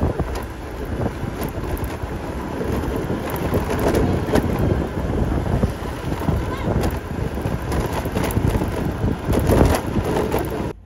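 Motor scooter riding along a concrete lane, its engine and road noise overlaid by heavy wind buffeting on the microphone. The sound cuts off abruptly near the end.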